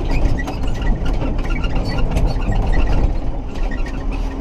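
Massey Ferguson 6270 tractor running, with a steady low engine rumble and constant clicking and rattling.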